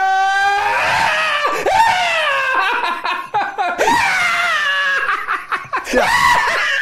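A person doing the spring scream (vårskrik): long, high-pitched yelling cries with the pitch sliding up and down. It breaks into a few wavering whoops, each a second or two long.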